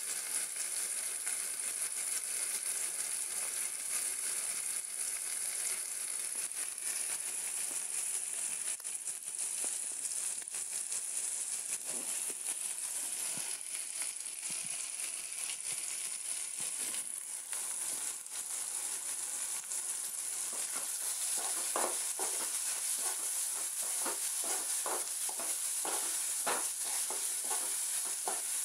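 Onions, green chillies and tomatoes sizzling steadily as they fry in an aluminium kadai. From about three-quarters of the way in, a spoon scrapes and stirs against the pan in a run of quick strokes.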